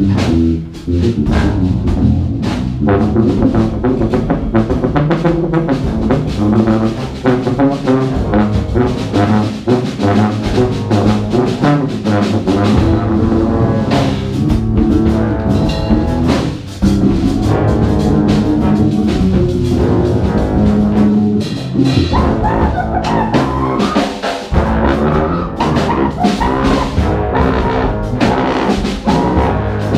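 Live jazz ensemble playing: saxophones, trumpets and tubas over a drum kit, in continuous dense music.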